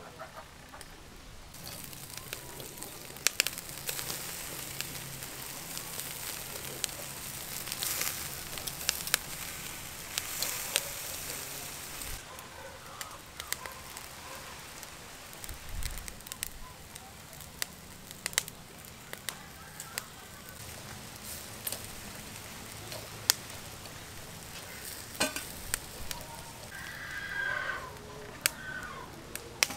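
Beef steaks sizzling on a wire grill over charcoal, with frequent sharp pops and crackles over a steady hiss.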